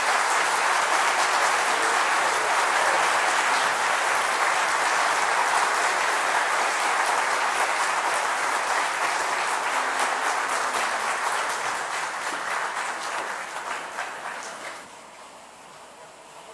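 Large audience applauding, steady and loud, easing off after about twelve seconds and dropping away sharply near the end.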